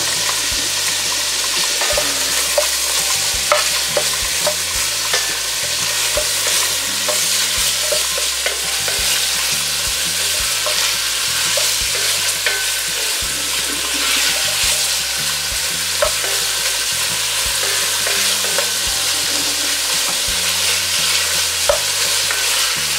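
Meat frying in hot bacon fat in a heavy pot: a steady, loud sizzle that jumps up right at the start, with scattered clicks of a utensil stirring against the pot. The meat is being browned.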